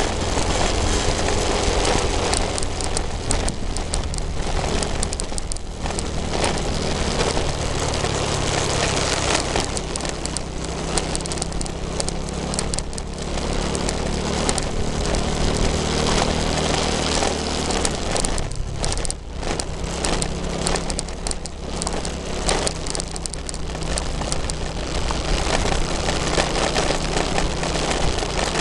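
Riding at speed on a motorcycle: heavy wind rushing and buffeting on the microphone over the steady low running of the bike's engine.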